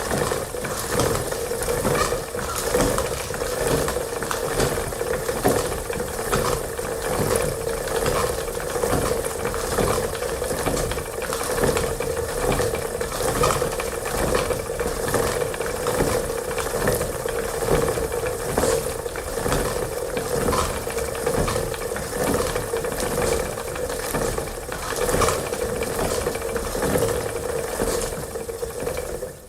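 Antique wooden spinning wheel turning steadily: a quick run of small wooden clicks and rattles over a steady whir, stopping at the end.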